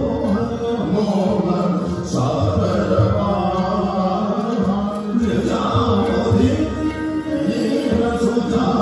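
Music for Kathak dance with a chant-like singing voice, running steadily over low sustained notes.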